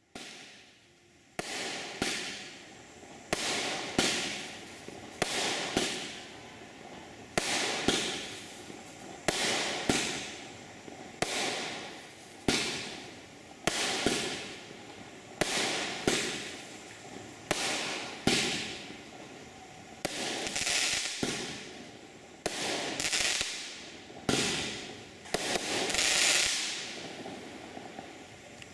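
TNT Massive Attack 13-shot firework cake firing its shots in sequence. Each shot is a sharp bang with a fading tail, one every second or two, and the last bursts near the end are the loudest.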